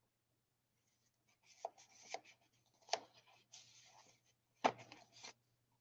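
Paper and card handled in a handmade journal: a tag sliding out of a paper pocket with a soft rustle, and a few light taps and snaps of card against the pages, the sharpest a little under five seconds in.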